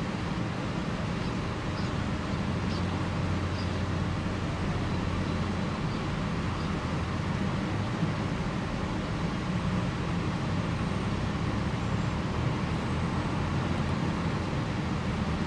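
Steady low rumble of background noise with no distinct events, and a few faint high chirps about two seconds in.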